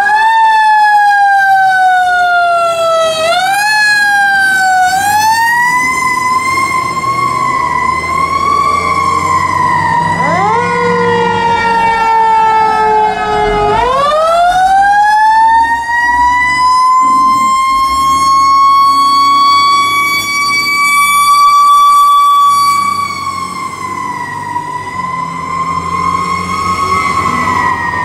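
Sirens of two fire trucks, a 2009 KME pumper and a 1998 American LaFrance aerial ladder, sounding as they pull out on a call. The siren climbs quickly in pitch and then falls slowly, and it is wound up again several times. A second, lower siren sounds briefly around the middle, and from about halfway a long high tone is held, then slowly falls away near the end.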